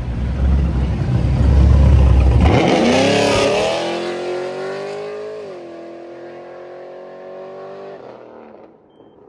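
Pontiac G8's loud LS3 V8 exhaust: a deep, heavy rumble close by, then about two and a half seconds in the engine revs up hard as the car accelerates away, the pitch climbing and holding before the sound fades into the distance.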